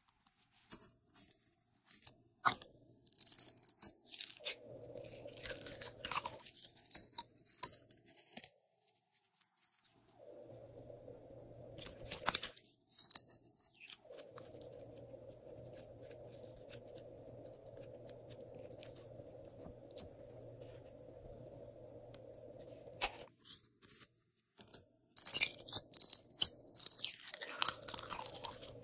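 Clear glossy slime squeezed, poked and pulled by hand, giving sticky crackles and small pops in spells, with a quieter stretch in the middle.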